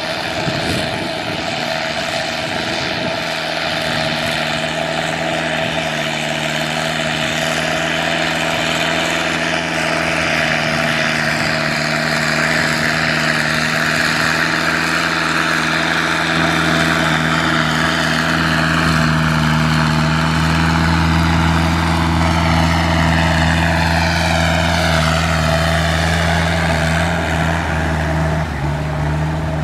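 Kubota M6040SU tractor's diesel engine running steadily under load as it pushes mud with its front blade through a flooded paddy, the note growing louder as the tractor comes close.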